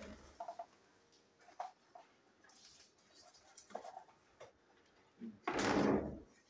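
Clear plastic packaging bag being handled, with scattered light clicks and crinkles and one louder rustle about five and a half seconds in.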